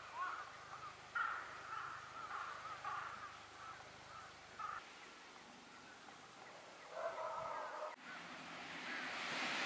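Birds calling outdoors: a run of short repeated calls for the first few seconds and a denser burst of calls about seven seconds in. About eight seconds in the sound cuts to a steadily rising rushing noise.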